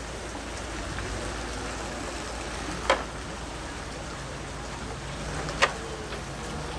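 Steady outdoor background hiss, broken twice by a sharp click or knock about three seconds apart.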